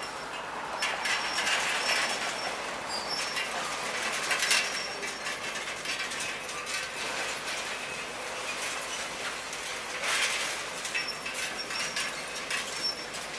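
Demolition excavator's grapple tearing at and dragging tangled steel debris: continuous metal scraping and clanking with thin high squeals, and louder crashes about one, four and a half, and ten seconds in.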